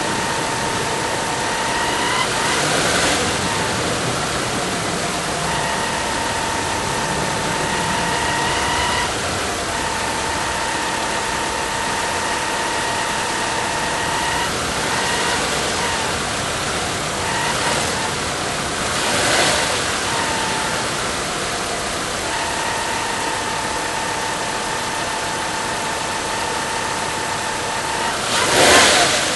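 VW Passat V5 engine running, with a high whine from the pulley area that comes and goes in stretches of a few seconds. This is the abnormal pulley noise that is back about three months after the pulley was replaced.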